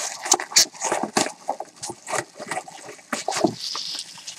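Packaging being torn open and crinkled by hand: a run of irregular crackles, rips and rustles.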